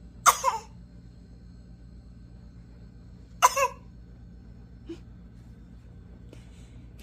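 A baby girl's deliberate fake cough: two short coughing bursts about three seconds apart, each a quick double hack.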